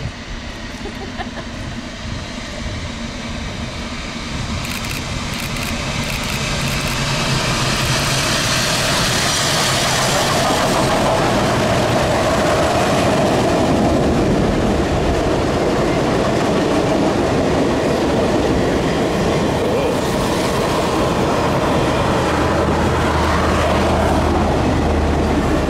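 Union Pacific Big Boy 4014, a 4-8-8-4 articulated steam locomotive, and its train passing at speed. The sound grows louder over the first eight seconds or so as the engine approaches and goes by. The tenders and passenger cars then roll past with steady wheel-on-rail clatter.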